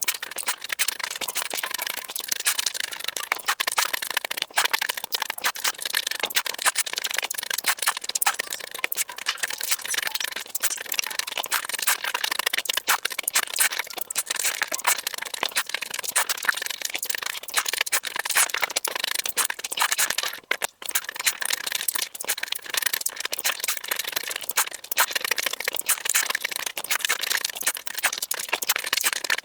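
Chewing and crunching of food, a dense crackle of small clicks, with a brief pause about two-thirds of the way through.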